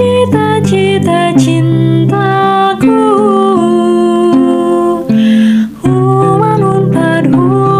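A young woman singing a slow Indonesian anthem solo, with held, gliding notes, over instrumental accompaniment; she pauses briefly for breath about five seconds in.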